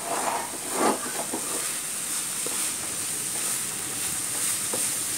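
Onion-tomato masala sizzling in oil in a non-stick frying pan, stirred with a wooden spatula, with a couple of louder stirring strokes in the first second.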